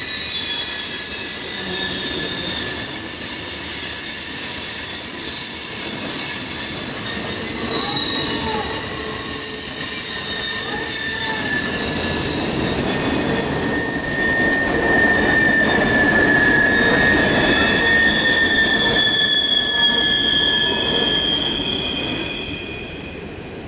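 CSX freight train rolling past, its steel wheels squealing against the rails in long, high, steady tones. The rumble of the cars swells about halfway through, and the squeal fades away near the end.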